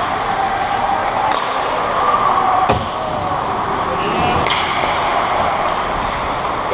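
Ice hockey play on an indoor rink: a steady wash of skates on ice and arena noise, broken by a few sharp knocks of stick and puck, the loudest about two and a half seconds in.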